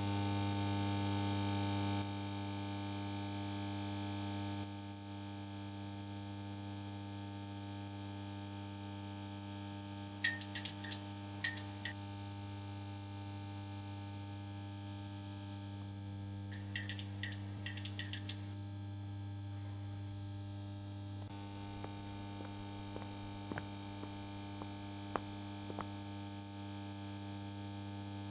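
Steady electrical mains hum, with two short flurries of light clicks partway through and a few faint ticks later on.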